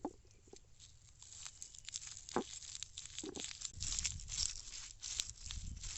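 Small onions (shallots) being crushed by hand: crackling, crunching and crinkling of papery skins, with a few dull knocks.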